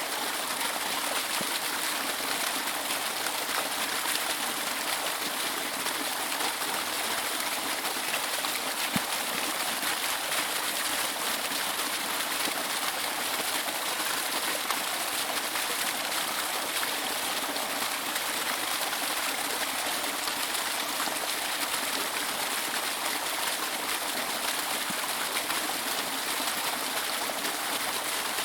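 Steady rush of falling water from a waterfall, an even hiss with no pauses.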